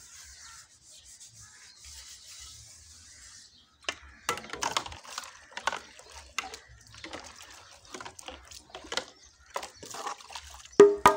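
Pan being scrubbed by hand in a basin of soapy water: irregular rubbing and scraping strokes with some sloshing. The strokes start about four seconds in, after a faint hiss.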